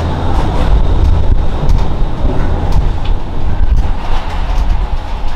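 Disney Skyliner gondola running on its cable system: a loud, steady low rumble with scattered clicks and clatter.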